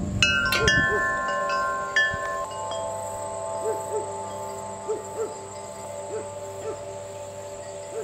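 Wind chimes struck several times in the first second, their tones ringing on and slowly fading. Behind them a soft hooting call, likely a bird, repeats every second or so.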